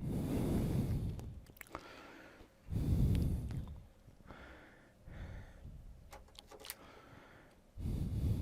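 A man breathing close to the microphone: three loud breaths, with a few light clicks in between.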